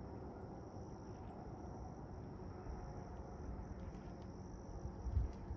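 Faint, steady high-pitched chorus of insects, an unbroken trill, over a low rumble of wind noise.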